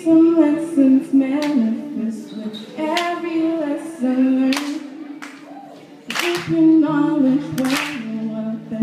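A woman singing an unaccompanied melody, with a sharp hand clap about every second and a half keeping time. A low steady note joins in near the end.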